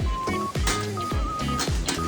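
Background music with a steady beat: a kick drum about twice a second under a bass line and a simple high melody.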